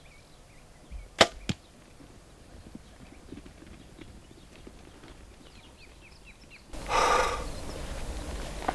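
Compound bow shot: a sharp snap of the string release about a second in, then a second, quieter crack about a third of a second later. Faint bird chirps follow, and near the end a brief burst of rustling noise.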